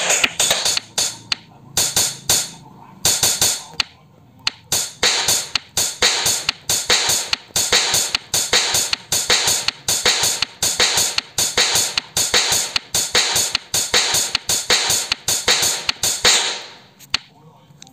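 Drum and cymbal samples from a virtual drum-kit app, triggered by quick taps on a phone touchscreen: a fast, uneven run of hits, several a second, that stops shortly before the end. The hits follow the taps closely, which the player takes to mean there is probably no touch delay.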